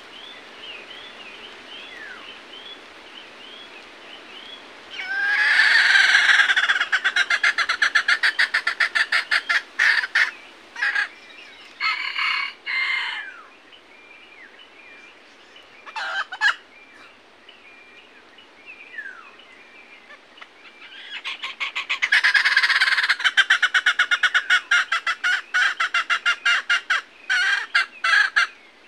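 Red junglefowl (labuyo) calling: two long stretches of loud, rapid pulsing, one about five seconds in and another in the last third, with shorter bursts between. Small forest birds chirp faintly underneath.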